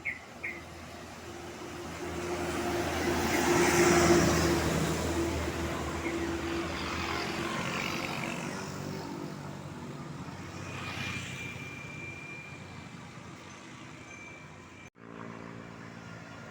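A large road vehicle, likely a bus, driving past: engine and tyre noise swell to a peak about four seconds in and then slowly fade away.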